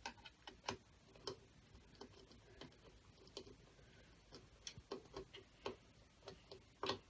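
Faint, irregular clicks and taps of small parts being handled while a ceiling fan's light kit is lined up and fastened with a screw.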